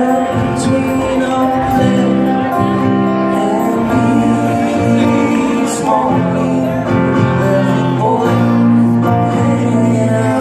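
Live band playing a song, with guitars, drums and a man singing, heard from the audience in a concert hall.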